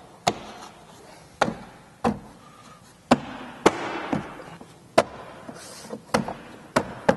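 Plastic interior trim panel of a Jeep Wrangler JL tailgate being pressed and knocked back into place by hand: about nine sharp snaps and knocks at uneven intervals as its push-in clips seat, with some plastic rustling in the middle.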